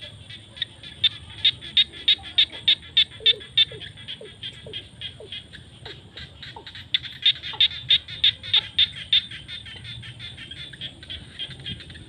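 Frogs calling: loud, sharp, high clicking calls repeat about three or four times a second in two bouts, one starting about a second in and one around seven seconds in. Between the bouts come short falling calls lower in pitch, over a faint chorus.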